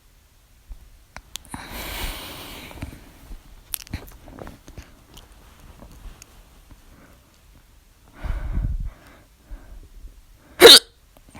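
A woman's hiccup: one loud, sharp, very short hic near the end, after a few softer noises.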